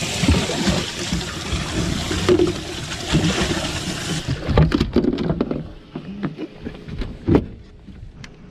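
Water splashing and rushing in a bass boat's livewell as a bass is put into it, a steady hiss that cuts off abruptly about four seconds in. A string of knocks and clunks from the livewell lid and from moving about the boat deck follows.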